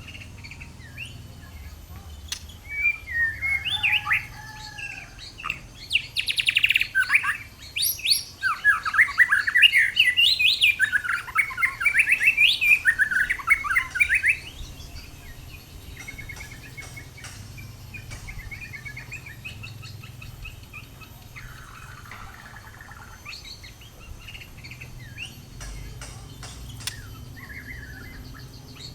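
White-rumped shama (murai batu) singing a loud, fast, varied song of gliding phrases for about twelve seconds, then dropping to softer, scattered chirps and calls for the rest of the time.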